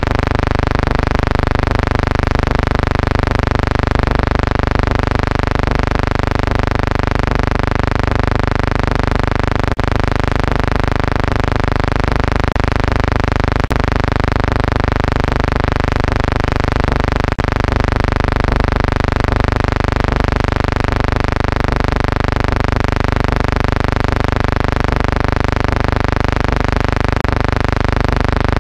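A steady electrical buzzing hum with many even overtones, unchanging throughout, with three faint clicks near the middle: background noise on the soundtrack of an archival film transfer.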